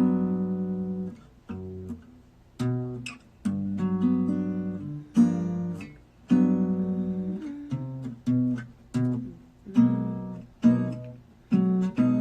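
Acoustic guitar chords, strummed one after another, each ringing out and fading before the next, with no voice over them.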